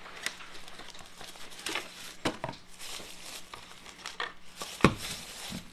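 Unboxing rustle: a cardboard box is slid open and a plastic-bagged water bottle pulled out, with crinkling plastic wrap, cardboard scraping and light clicks. A single sharp knock a little under five seconds in, the loudest sound.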